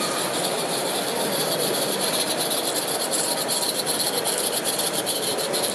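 Live-steam model narrow-gauge locomotive chuffing past with a rapid, hissy exhaust beat that grows louder about halfway through as it comes close. Steady hall background noise underneath.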